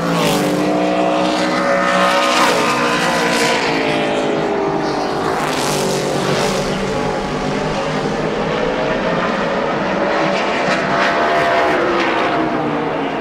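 Pro Cup stock car's V8 engine running at racing speed on a lap, its note falling and climbing again several times as the driver lifts for the corners and gets back on the throttle.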